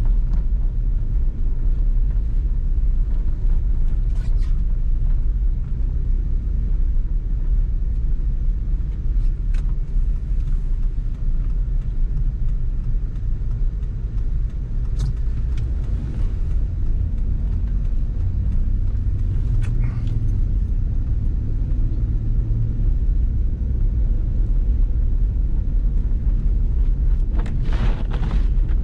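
Steady low rumble of a vehicle driving on snow-covered streets, heard from inside the cabin: engine and tyre noise on packed, crunchy snow. A few brief clicks or knocks come through it, the longest near the end.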